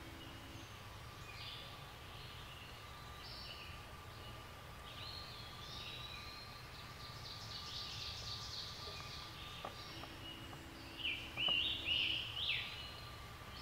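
Songbirds singing in the woods, several different short phrases overlapping. A fast, even trill comes in the middle, and louder, busier calls come near the end.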